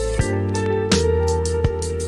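Background music: plucked guitar-like instrument over steady bass notes with a regular beat.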